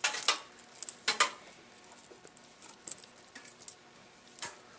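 Computer power supply cables being untangled by hand: the plastic connectors click and knock against each other with a light rattle. There are several sharp clicks in the first second and a half and another near the end.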